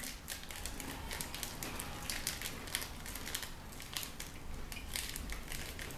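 A crunchy snack being chewed close to the microphone: a steady run of small, dry crackling crunches.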